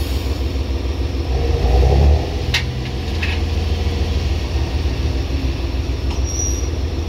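JR Hokkaido H100 diesel-electric railcar running with a steady low engine hum, which swells louder for a moment about a second and a half in as the uncoupled car moves apart. Two sharp clicks follow, at about two and a half and three seconds in.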